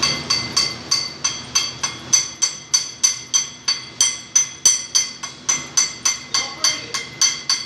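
Steady hammering on metal, about three blows a second, each strike ringing out with a bright metallic tone.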